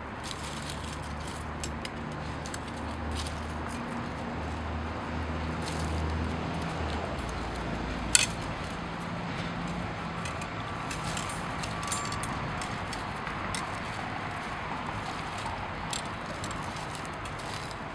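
Steel wire being bent and wrapped by hand around a wooden rake handle: light scraping and small metallic clicks, with one sharp click about eight seconds in. A low hum sits in the background and stops about seven seconds in.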